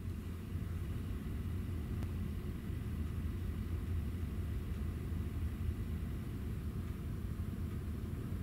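Steady low rumble of the ferry Sunflower Ivory's engines and machinery, heard from inside a cabin, with a faint steady high tone over it.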